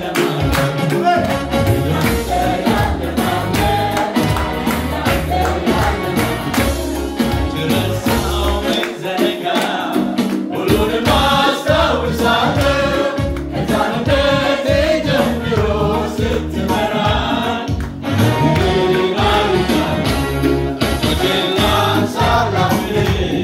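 A group singing a gospel worship song together, accompanied by an electric keyboard through a PA speaker with a strong bass line, and punctuated by hand claps.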